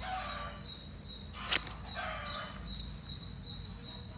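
A sharp tearing snap about one and a half seconds in, as the sealed box of an Apple 20W USB-C charger is pulled open. Short whining animal cries come near the start and again about two seconds in, over a steady high-pitched tone.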